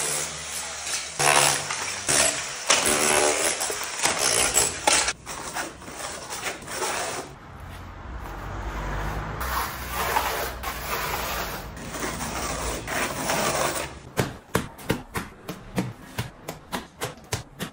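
Building work on a brick and mortar pillar. It opens with an electric demolition hammer chipping brick, followed by mortar being scraped and spread with a trowel. Near the end come quick, sharp knocks of a hand tool on the render, about three a second.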